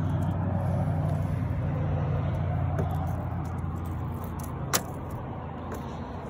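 Steady low hum of a boat motor running, easing off a little past the middle, with one sharp click near the end.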